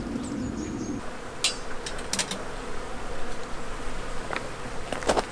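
A flying insect buzzing for about the first second, then stopping; scattered sharp clicks and light knocks follow.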